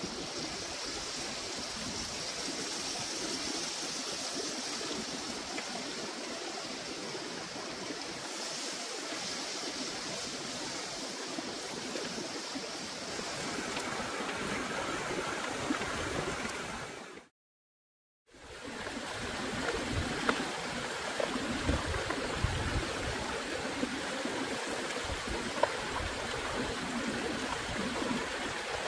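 Crab curry sizzling and bubbling in a wok over a wood fire: a steady hiss. The sound drops out briefly a little past halfway, and light clicks and taps come through after it.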